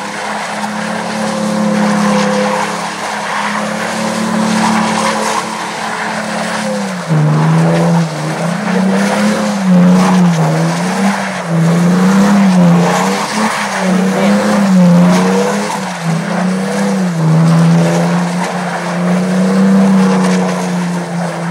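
Toyota Tacoma pickup's engine under throttle while doing donuts, tyres spinning in snow. The engine's pitch holds steady for the first third. It then rises and falls repeatedly as the throttle is worked, and settles to a steady pitch again near the end.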